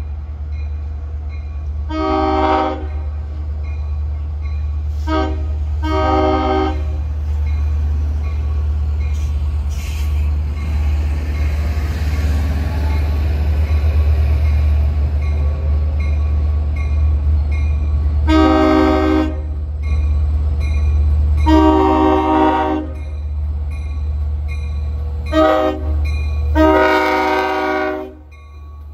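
LIRR DE30AC diesel locomotive's horn sounding the grade-crossing signal twice, long, long, short, long each time, as the train approaches, over a steady low diesel rumble. The crossing bell rings in the background.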